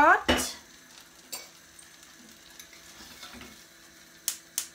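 Butter and chocolate being stirred with a spoon in a saucepan. Near the end the spoon knocks against the side of the pan in quick, even clicks, about three a second.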